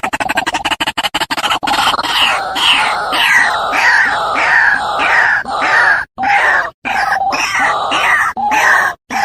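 White-breasted waterhen calling: a fast chattering run that gives way, about two seconds in, to a series of harsh falling 'ruak' notes at about two a second, with a few abrupt breaks near the end where the recording is cut.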